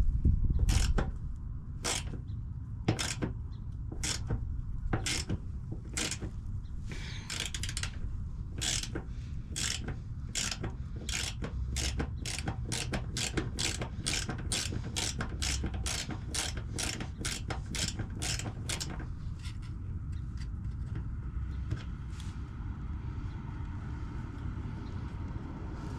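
Ratchet wrench clicking in regular strokes while a propane line fitting is slowly loosened, about one click a second at first, then about two a second, stopping about three quarters of the way through.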